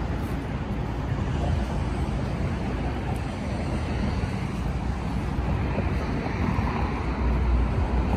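Steady low outdoor rumble of wind on the microphone mixed with street traffic.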